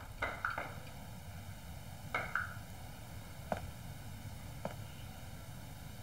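Light footsteps on a floor that stop about half a second in, followed by a few faint lone ticks and a soft rustle over quiet room tone.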